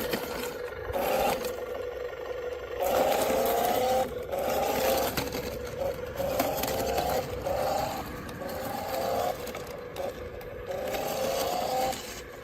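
Toy RC truck's electric motor and gears whining in repeated bursts about a second long, the pitch sliding within each burst as the throttle is worked, over scraping noise.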